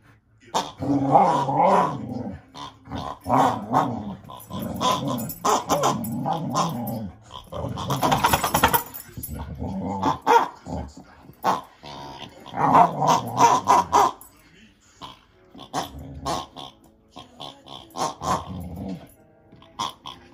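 Boxer dog play-growling in repeated short bouts while mouthing and chewing a rubber toy, with a longer rasping stretch about eight seconds in.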